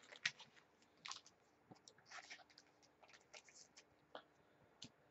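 Faint rustling and sliding of trading cards being handled and flipped in the hands, with a few soft clicks.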